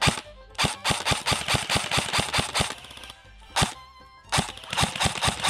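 Background music with a fast, driving percussive beat of about five hits a second, broken by two short pauses around the middle.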